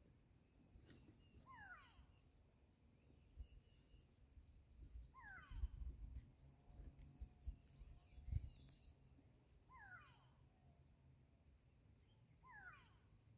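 A bird calling in the bush, four short falling calls a few seconds apart, with a few low thumps in the middle.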